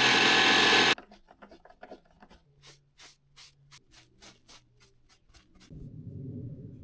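A small power tool runs loudly and cuts off suddenly about a second in. It is followed by a run of short, scratchy rubbing strokes, about two or three a second, which stop near the end as a low rumble comes up.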